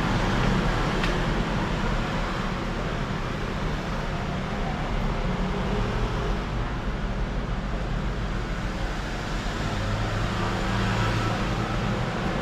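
Steady low rumble and hiss, with one faint click about a second in.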